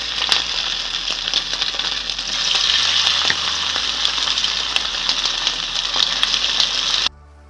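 Marinated mackerel pieces frying in hot vegetable oil: a steady sizzle with scattered crackles as more pieces go in. The sizzle cuts off suddenly near the end, leaving faint music.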